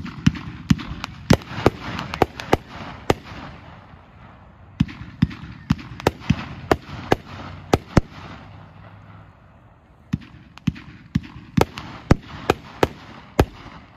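Summer Inferno consumer firework cake firing its shots: sharp bangs about three a second, in three volleys with brief lulls about four and ten seconds in.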